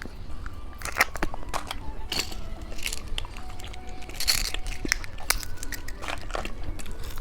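Close-miked crunching and crackling of hard candy, in scattered sharp crackles.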